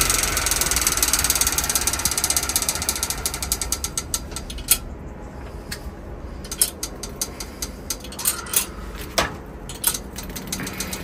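Bicycle freewheel ratchet clicking as the wheel coasts down. A fast run of clicks over a whir gradually slows to single clicks spaced well apart.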